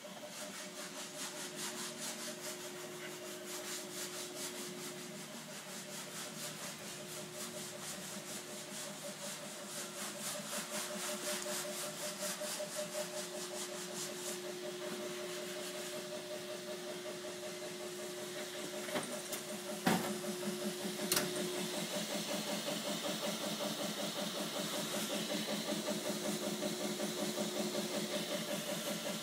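A machine runs steadily with a fast, even pulsing and a steady hum, getting a little louder later on. Two sharp knocks about a second apart come roughly two-thirds of the way through.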